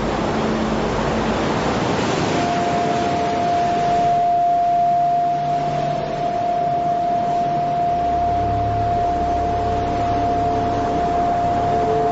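Ambient drone soundtrack: a steady rushing noise like surf, joined about two seconds in by a long held tone, with lower held tones coming in later. The rushing noise thins out after about four seconds while the drone carries on.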